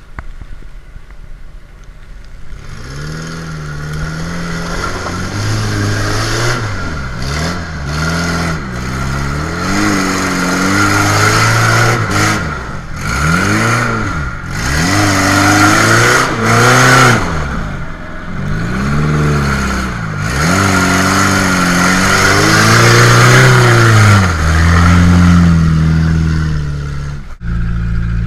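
1994 Suzuki Sidekick's four-cylinder engine revving hard as it churns through deep mud, its pitch climbing and falling again and again every second or two. Near the end it cuts to a steadier low engine drone.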